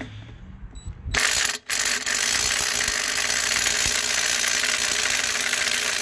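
DeWalt 1/4-inch cordless impact driver hammering in reverse on a tight trailer lug nut to break it loose. It starts after a few clicks about a second in, stops for a moment, then hammers on steadily.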